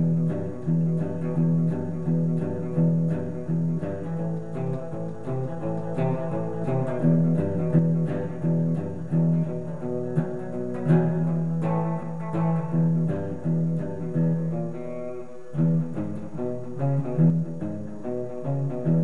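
Fender Player Telecaster electric guitar played through an amp with the chorus switched off, picking a continuous run of country-style licks: single notes and short phrases with crisp attacks and sustained low notes.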